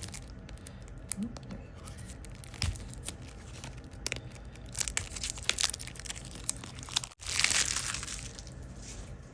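Plastic wrapping crinkling and tearing as it is handled, with scattered crackles. The sound breaks off briefly about seven seconds in, then a longer burst of rustling follows.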